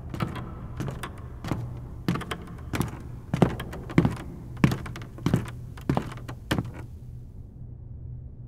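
A run of irregular dull knocks, about one or two a second and loudest in the middle, over a steady low hum; the knocks stop about seven seconds in.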